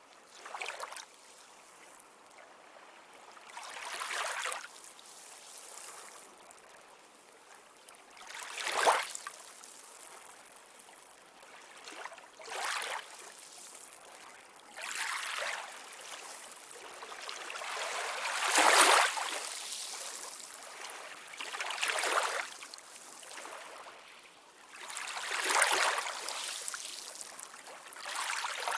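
Sea waves washing onto a shore in repeated surges of hiss every few seconds, some breaking more sharply than others, the strongest about nine seconds in and again near the middle.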